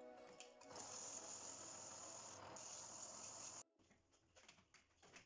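Sandpaper hissing steadily against a wooden goblet spinning on a wood lathe. It stops abruptly about three and a half seconds in, leaving a few faint clicks and knocks.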